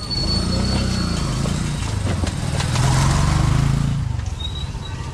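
A motor vehicle's engine running close by, its pitch wavering, loudest about three seconds in and then fading away.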